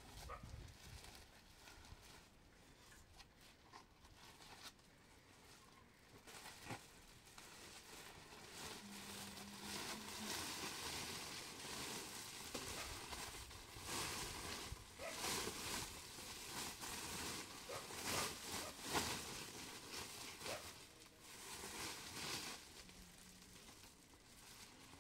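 Rustling and crinkling handling noise with scattered light clicks and knocks, louder in stretches during the second half.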